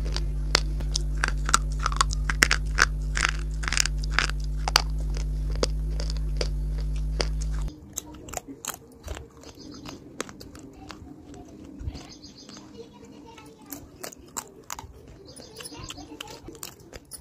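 Crunchy bites and chewing of dry chalky clay, a rapid string of sharp crunches over a steady electrical hum. About 7.5 s in the hum stops and the sound drops to quieter, sparser crunches of a slate pencil being bitten between the teeth.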